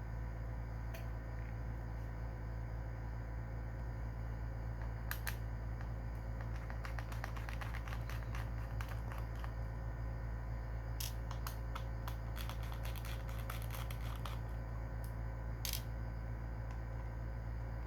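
Small sharp clicks and ticks of hand tools and parts being handled on a laptop, coming singly and in quick clusters, over a steady low hum.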